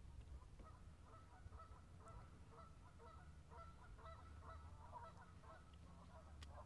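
Faint overlapping honking calls of a flock of birds, several short calls a second, over a low steady rumble.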